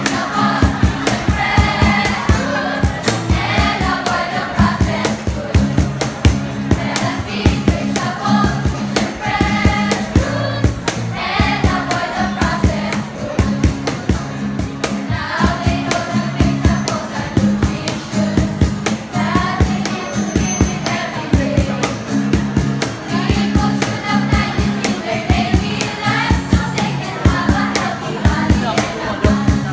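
A group of voices singing a jingle together over music with a steady beat.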